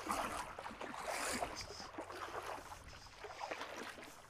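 Ocean surf and wind noise on a beach, an even wash with small scattered crackles, fading slightly near the end.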